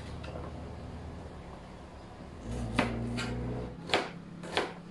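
Kitchen knife slicing through small vegetables and striking a plastic cutting board: four sharp knocks in the second half, a little over half a second apart.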